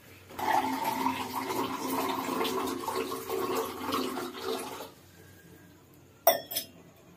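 Water pouring steadily into a plastic drinking glass for about four and a half seconds. A little later come two sharp knocks in quick succession.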